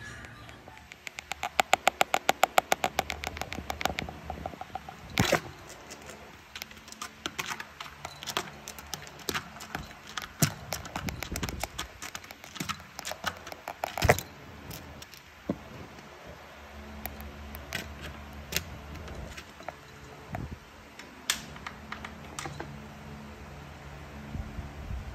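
Small bell on a cat's collar jingling as the cat moves: a fast, regular run of jingles about a second in, then scattered single jingles and clicks.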